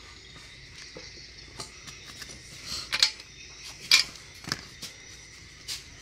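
Scattered metallic clicks and clinks of hand tools and small parts against a grass-trimmer engine while its carburetor is handled, with two sharper clinks near the middle.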